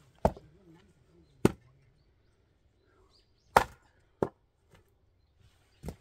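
An axe chopping firewood: five sharp, separate wooden strikes at uneven intervals.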